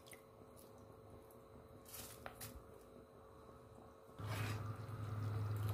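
Pot of rice and dal water boiling on a gas stove, bubbling faintly with a few light ticks. About four seconds in, a steady low hum starts and holds.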